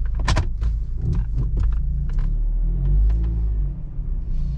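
Car engine running under low load, heard inside the cabin as a steady low rumble while the car is manoeuvred through a three-point turn, with a sharp click near the start and a few lighter clicks and knocks.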